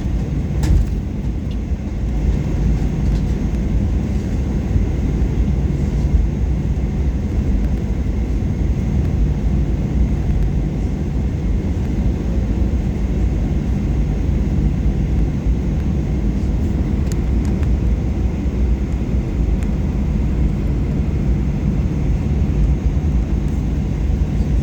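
Steady low rumble inside the cabin of a Boeing 737-800 taxiing after landing, its CFM56-7B jet engines running at idle.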